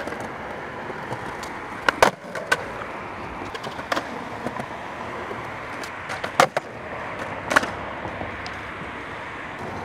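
Skateboard wheels rolling on concrete, with a few sharp clacks of the board striking the ground (tail pops and landings of fakie 360 flip attempts) about two seconds in, near four seconds, around six and a half seconds and again near seven and a half seconds.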